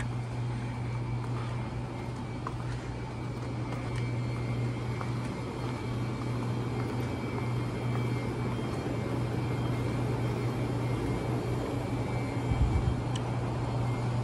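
Steady low hum and air hiss of a large store's air-conditioning and refrigeration machinery, with one brief low bump near the end.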